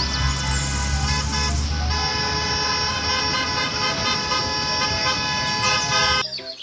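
School buses' diesel engines running and tyres hissing on a wet road as the buses pull out. A heavy low rumble eases about two seconds in, and the sound cuts off abruptly just before the end.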